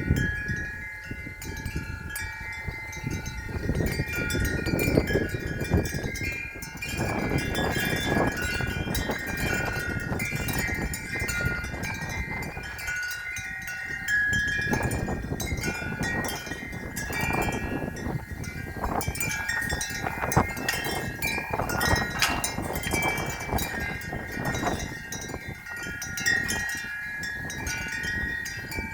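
Wind chimes ringing continuously in the wind, many overlapping sustained tones struck again and again. Gusts of wind rumble on the microphone from time to time.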